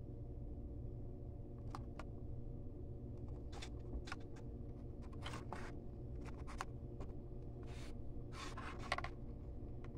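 A steady low hum in the ceiling space, with light scrapes, rubs and clicks scattered through it from handling in the ceiling.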